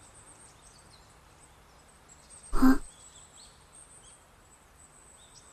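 Countryside ambience in an anime soundtrack: a high, steady insect drone with scattered bird chirps. One brief, loud sound comes about two and a half seconds in.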